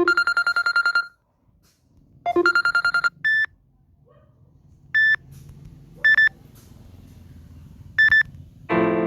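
Samsung Galaxy Note9 ringtone: two trills of rapid electronic beeps, each lasting about a second, then four short single beeps a second or two apart. Near the end a different, piano-like ringtone begins.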